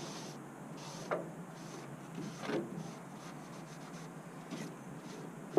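A rag wiping across the car's metal cowl at the firewall: light rubbing, with a few short, falling squeaks.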